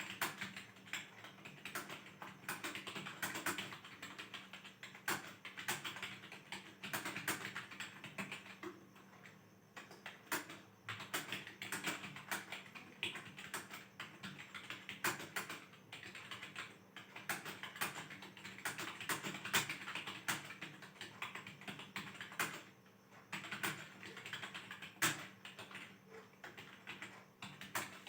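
Typing on a computer keyboard: quick, irregular keystrokes in runs with brief pauses, over a faint steady hum.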